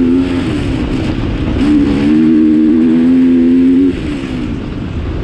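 Off-road vehicle engine running at steady revs under throttle over a low rumble. The engine note eases off briefly just after the start, holds steady again from about a second and a half in, and drops away near four seconds.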